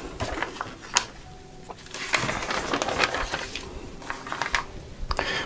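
Paper pages of building-instruction booklets being turned and pressed flat by hand: paper rustling and rubbing, with a short tap about a second in.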